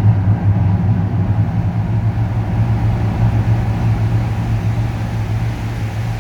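A steady, low engine drone with a strong hum that eases off slightly toward the end.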